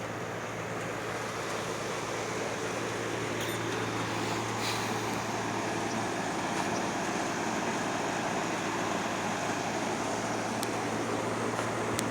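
Air-conditioning outdoor units running: a steady low hum under an even rushing of fan air, with a few faint ticks.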